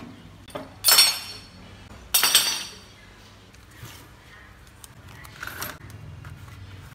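Two sharp metal-and-glass clinks, about a second in and again a second later, from the toaster oven's glass door being handled. Near the end comes a fainter rasp of masking tape being pulled off its roll.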